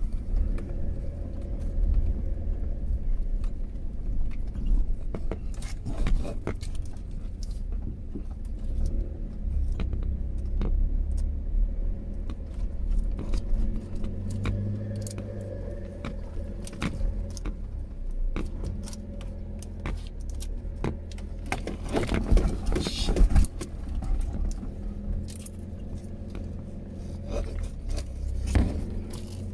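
Inside a Mitsubishi Pajero Sport driving slowly over a rutted sand track: the engine drones steadily while loose items and trim rattle and click with every bump, with a louder burst of knocks about three-quarters of the way in.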